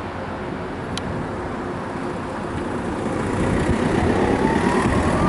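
Class 66 diesel locomotive's two-stroke V12 engine running as it approaches, getting louder from about three seconds in, with a rising whine near the end.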